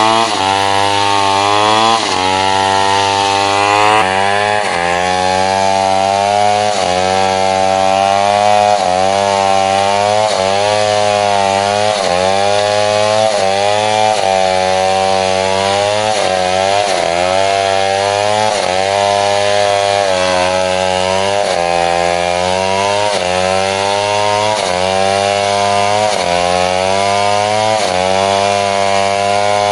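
Chainsaw cutting into a tree, running loud and steady, its engine pitch dipping under the load of the cut and recovering over and over, about every second and a half.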